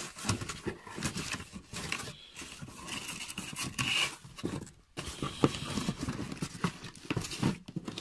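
Plastic-bagged parts crinkling and cardboard scraping and knocking as a hand rummages through a packed box, in irregular clicks and rustles.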